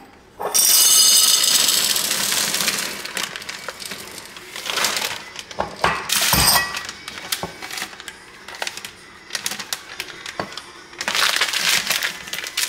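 Chocolate chips poured from a bag into a glass jar, rattling loudly against the glass, then scattered small clicks of chips and a sharp glass clink about six and a half seconds in. Near the end, another dense rustling rattle as dry pasta and its packaging are handled over a tall glass jar.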